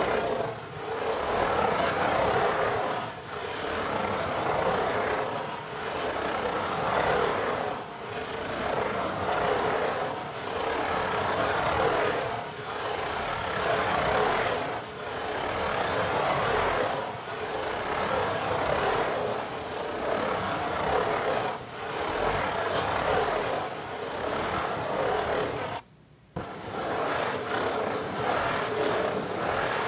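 Fingers scratching in circles on the lid of a Pizza Hut cardboard pizza box: a continuous scratchy rasp that swells and fades about every two seconds. It breaks off for about half a second near the end.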